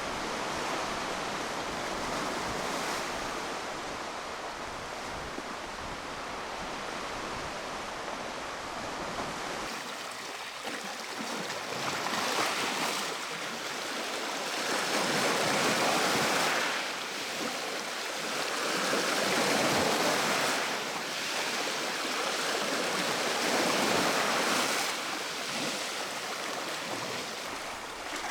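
Black Sea waves washing onto the shore, a steady wash that from about ten seconds in rises and falls in surges every three to four seconds.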